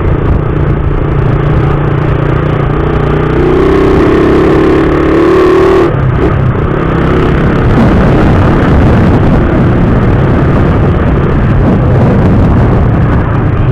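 Suzuki Raider 150 motorcycle's single-cylinder engine running while riding, with wind and road noise. The engine note changes about six seconds in.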